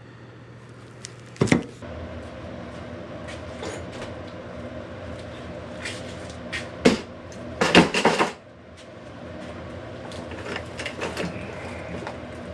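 A sharp knock, then a steady hum with a few level tones in it, broken by another knock and a short clatter of knocks about eight seconds in.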